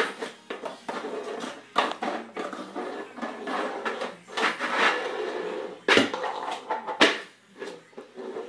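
A plastic cereal bowl scraping and clattering across a hard kitchen floor as a boxer puppy shoves and pounces on it. There are irregular sharp knocks with stretches of sliding between them, and two of the loudest knocks come late on.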